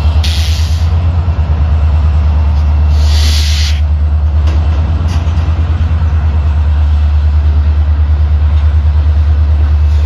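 Diesel freight locomotives running with a loud, steady, pulsing low rumble as a freight train moves through the yard. Two short bursts of air hiss come at the start and about three seconds in.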